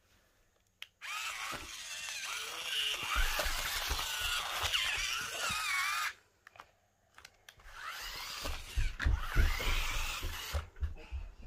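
Small electric drive motors of a double-sided stunt remote-control car whining as it drives, in two runs: one of about five seconds starting a second in, and a shorter one near the end, the pitch wavering as the speed changes. Low knocks from the wheels on the floor run under the whine.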